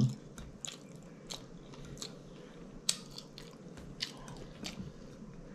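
Soft, close-miked chewing with scattered wet mouth clicks and lip smacks as a person eats a mouthful of food.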